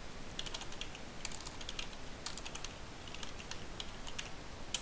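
Computer keyboard being typed on: crisp keystroke clicks coming in short irregular runs.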